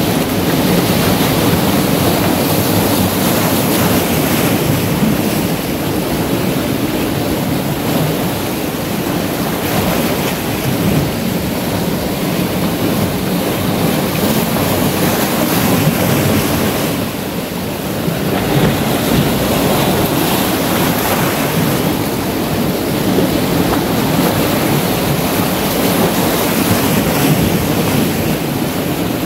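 Sea surf breaking and washing around shoreline boulders, a steady rush with a brief lull about two-thirds of the way through.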